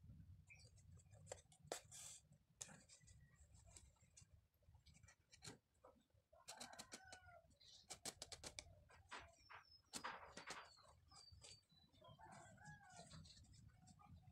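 Faint bird calls in the background, short clucking calls and a brief run of high chirps, over scattered light clicks and rustles.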